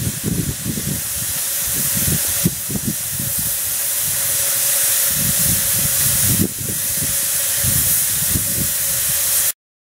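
Steady loud hiss of steam from a 10.25-inch gauge miniature steam locomotive, a replica of the 0-4-2 'Lion', as it is prepared for a run, with a faint steady tone and irregular low rumbling underneath. The hiss dips briefly about six and a half seconds in.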